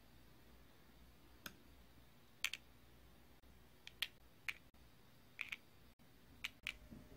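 Metal tweezers tapping and clicking against a clear plastic mould tray as small soft-candy balls are set into its holes one by one. The clicks are light, short and irregular, some coming in quick pairs.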